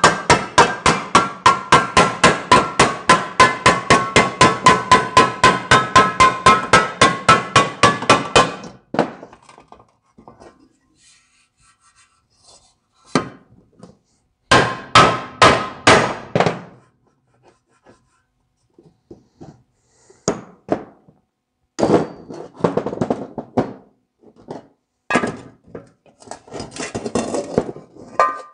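Hammer beating dents out of a Ford tractor's sheet-metal air cleaner cover. A fast, even run of blows, about five a second, each with a short metallic ring, lasts some eight seconds. After a pause come a brief burst of blows and then scattered strikes and knocks.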